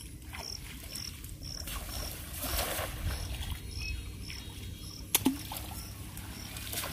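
Insect chirping steadily, short high chirps about twice a second, over outdoor background noise. A brief rush of noise swells about two and a half seconds in, and a single sharp knock sounds about five seconds in.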